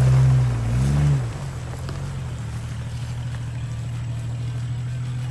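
Off-road vehicle engine revving up and back down twice in the first second or so, then running at a steady drone.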